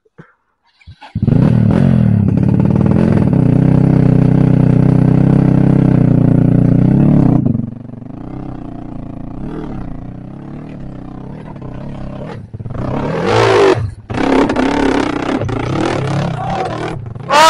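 Dirt bike engine held steadily at high revs, loud, for several seconds. It then drops to a quieter, uneven throttle with a short rev-up about three-quarters of the way through, as the bike works up a rough trail climb.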